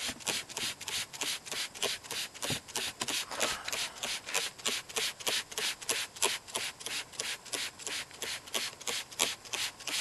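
Red trigger spray bottle of Purple Power degreaser pumped quickly and evenly, about four to five short hissing sprays a second, onto a cloth car seat cushion.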